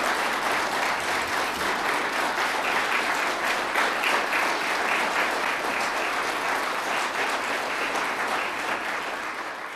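A large audience applauding, a steady ovation of many hands clapping that tapers off near the end.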